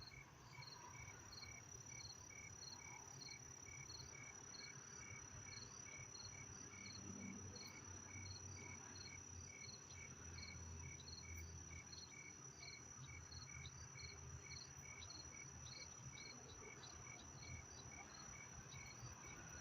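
Crickets chirping faintly and evenly, about two to three chirps a second, over a steady high-pitched insect trill.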